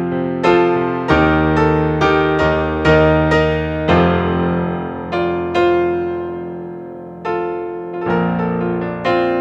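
Piano music: a slow, gentle passage of struck notes and chords, each ringing and fading, with one long chord left to die away about halfway through before the playing picks up again.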